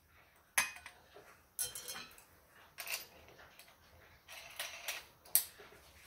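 Handling noises: a few scattered light clicks and metallic knocks as a Bosch X-Lock diamond metal-cutting disc is handled and laid on a bench vise, the loudest knock near the end.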